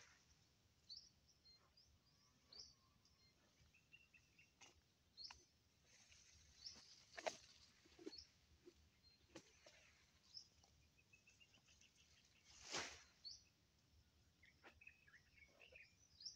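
Faint chirping of small wild birds, with scattered light clicks and a brief louder swish of grass about thirteen seconds in.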